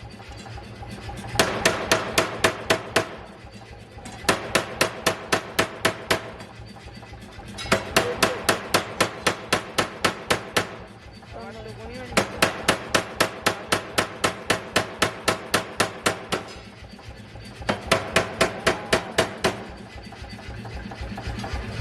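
40 kg pneumatic forging air hammer striking in rapid runs of about four to five blows a second, in repeated bursts of a few seconds separated by short pauses. A steady machine hum runs under it, including the pauses.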